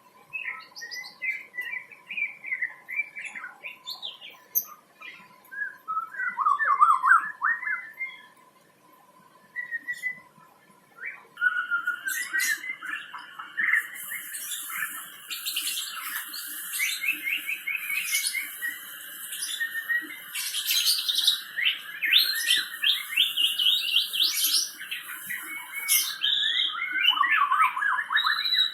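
White-rumped shama (murai batu) singing a varied, fast-changing song of whistled and chattering phrases. It sings in short scattered phrases at first, then in a fuller, nearly unbroken stream from about a third of the way in, with a high hissing sound joining soon after.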